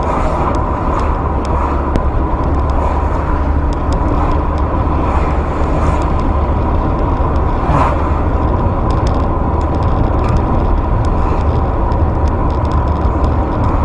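Steady engine and road noise of a moving car, heard from inside the cabin through a dashcam's microphone, with a thin steady whine above it.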